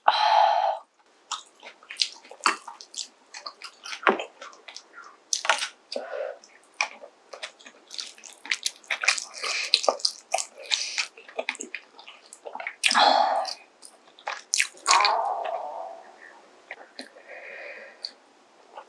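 Close-miked eating: wet chewing and lip smacks, with a few longer slurps, one right at the start and others about two-thirds and three-quarters of the way through.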